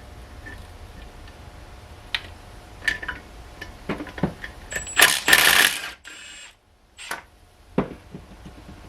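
Metal hand tools clicking and clinking on car parts, with a loud hiss lasting about a second about five seconds in.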